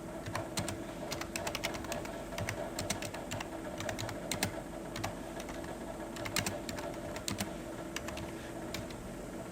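Plastic packaging of a bag of dried tea being handled: irregular light clicks and crinkles, a few a second, over a steady background hum.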